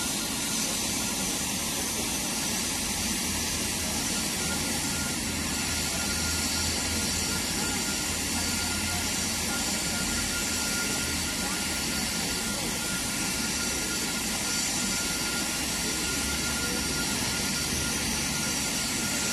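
Steady hiss of steam from a standing BR Standard Class 9F 2-10-0 steam locomotive, with a thin steady high tone running through it.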